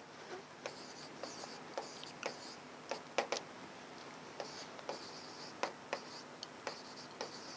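Faint handwriting: irregular light scratches and taps of a pen tip as a problem is written out.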